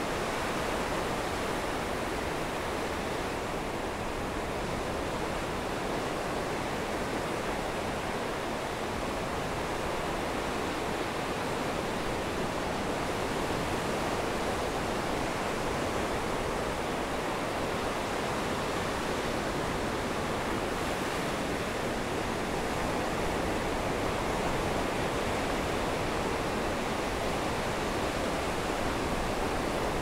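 Rough ocean surf breaking and washing around the wooden pilings of a pier: a steady, dense rush of waves with no single crash standing out.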